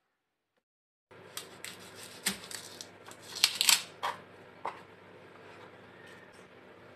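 Silence for about a second, then a knife cutting into a garlic bulb on a plastic cutting board: a run of sharp crunches, clicks and papery crackling of garlic skin, loudest in the middle, fading to a steady low background noise.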